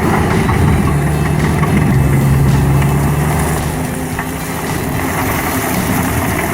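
Stump grinder's engine running steadily with a low hum, easing off slightly about four seconds in.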